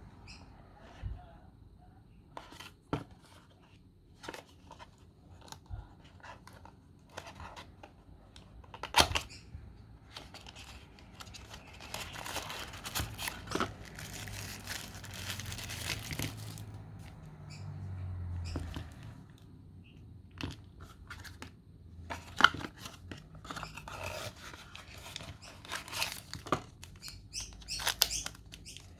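Packaging being opened and handled for a clear plastic earbud case: scattered sharp clicks and taps, with a stretch of rustling and tearing in the middle and a cluster of clicks near the end.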